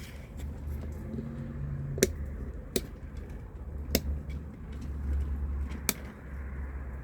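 Four sharp clicks spaced a second or two apart over a low rumble, from a switch being worked as the generator is tried for power. No pump or engine runs in response: the generator is getting no electrical power.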